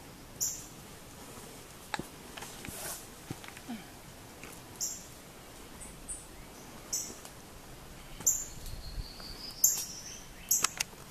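Small birds chirping: short high chirps every second or two, and a rising whistled note near the end.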